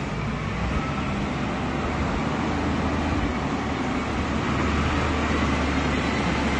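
Wheel loader's diesel engine running steadily as the machine drives, growing a little louder as it nears.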